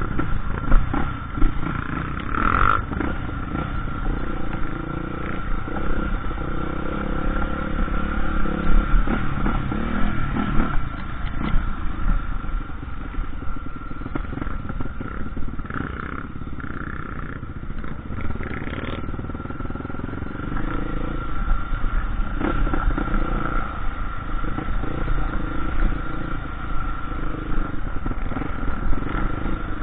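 Dirt bike engine running on a trail ride, its level rising and falling with the throttle, with a steady high whine over it and some clatter from the bike.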